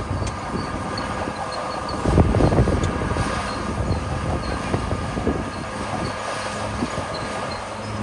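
Crawler bulldozer's diesel engine running under load while its steel tracks clank and the blade pushes and scrapes through a pile of gravel. It gets louder for a moment about two seconds in.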